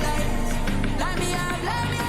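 Background music: a pop song with a sung melody over a steady beat and bass.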